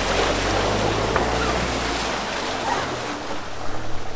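Fiat Ducato camper van driving through a muddy puddle: its wheels splash through the water while the engine runs, and the engine sound fades about two to three seconds in as the van drives on past.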